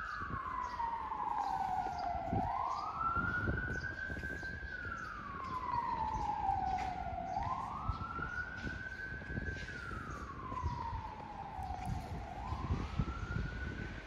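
A wailing siren: its pitch climbs quickly, holds briefly at the top, then slides slowly back down, the cycle repeating about every five seconds.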